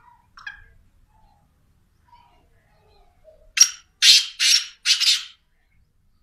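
Black francolin calling: a few faint soft notes, then about halfway through four loud, harsh notes in quick succession.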